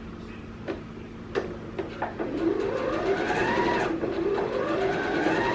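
Janome electric sewing machine: a few clicks, then the motor runs in two spells of stitching, with a brief pause between them. Its whine rises in pitch as it speeds up each time.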